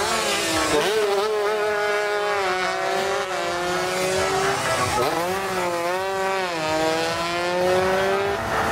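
Tuned two-stroke underbone racing motorcycles passing at high revs. The engine note climbs, then slides slowly down, dips sharply about five seconds in, and climbs and falls once more.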